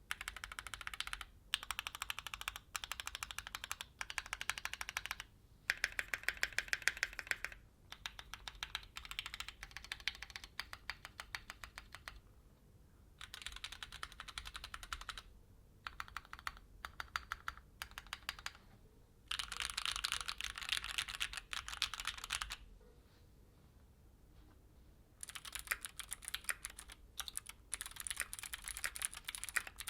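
Keychron Q6 full-size mechanical keyboard being typed on in bursts of rapid keystrokes with short pauses. Until about 23 s in the keys are stock Gateron G Pro Brown tactile switches. After a pause of two or three seconds, typing resumes on Gateron G Pro Blue clicky switches.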